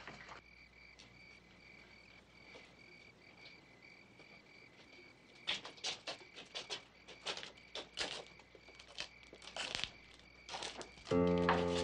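Crickets chirping in a steady high trill. About halfway through, a run of footsteps joins in, and music comes in just before the end.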